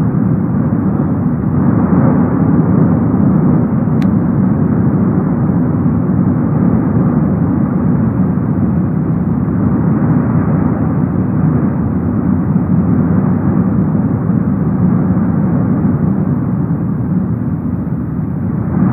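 Cumbre Vieja volcano erupting: its lava fountain gives a steady, deep rumble without a break.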